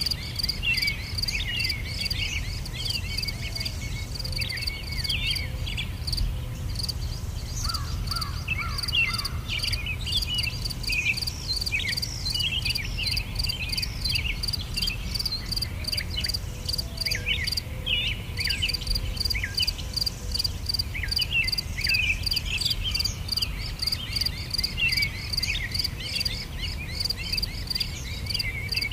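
Insects chirping in a steady, rapid pulse that pauses briefly twice, with many birds chirping over it in short, falling notes and a low steady rumble underneath.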